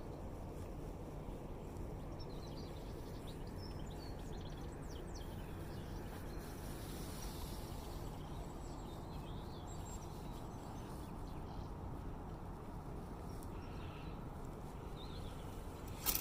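Steady low outdoor background rumble of a harbourside, with faint scattered bird chirps. A short loud noise comes right at the end.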